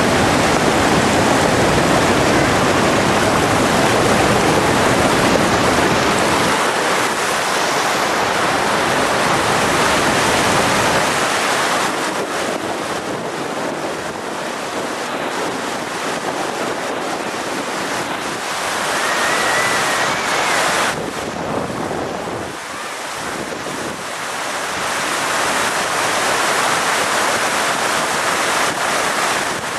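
Whitewater of a river in flood rushing over rocks and down a waterfall: a loud, steady roar of water that grows a little quieter about halfway through.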